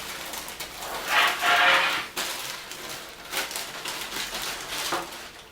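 A keyboard being slid out of its box: packaging rustling and scraping, loudest for about a second starting a second in, with smaller scrapes and knocks.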